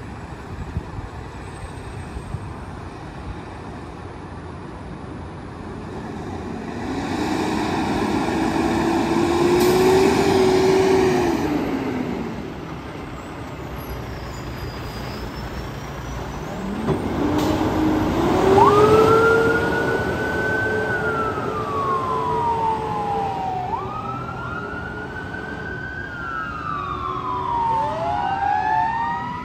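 Fire ladder truck's sirens as it pulls out on a call. About seven seconds in, a low siren winds up, holds and dies away by about twelve seconds. From about seventeen seconds a low siren spins up again and holds, while a higher siren wails up and down over it, with the truck's engine rumbling underneath.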